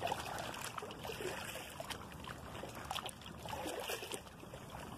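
Small waves lapping and trickling at the water's edge: a steady outdoor hiss with scattered faint clicks.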